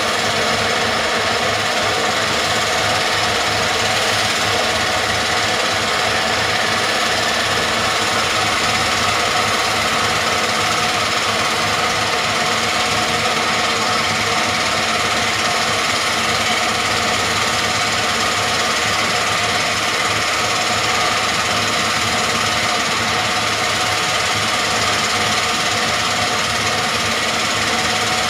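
Crane-hung vibratory pile hammer shaking a large steel casing down into the ground, a loud, steady, fast rattling buzz that holds without a break.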